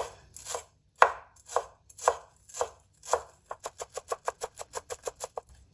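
Chef's knife chopping fresh coriander on a bamboo cutting board: separate strokes about two a second, then quicker chopping at about four a second for the last two seconds.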